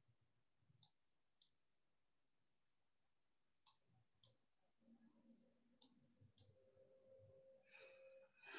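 Near silence: faint room tone with three pairs of small, short clicks spread through the stretch.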